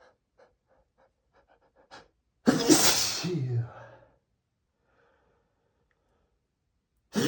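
A man sneezing hard: a few quick, faint catching breaths, then a loud sneeze about two and a half seconds in, ending in a voiced "choo" that falls in pitch. A second sneeze starts right at the end.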